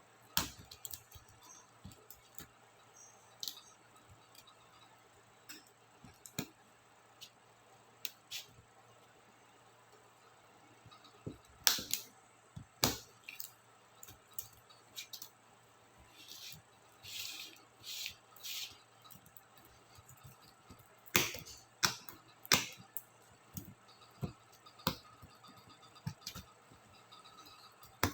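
Small plastic clicks and snaps, scattered and irregular, a few of them sharper and louder, with some short scraping sounds in between: laptop keycaps and their clips being pried off and handled.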